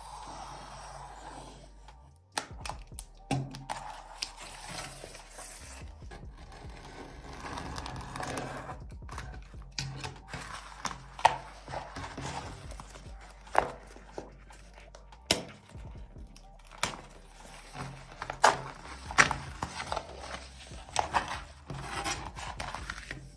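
Carbon-fibre vinyl wrap being cut with a utility knife and handled around a plastic gauge-cluster bezel: irregular sharp clicks and taps over the rustle and crinkle of the vinyl sheet.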